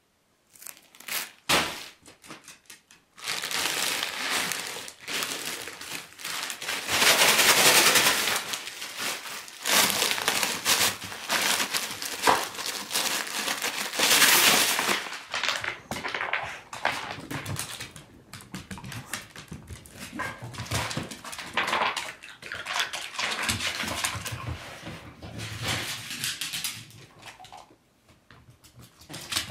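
Plastic bag of ice chips crinkling and rustling as a beagle tears at it and drags it, with ice chips clicking and clattering as they scatter across a rug and wooden floor. The crinkling is loudest in the first half and thins to scattered rustles and clicks later.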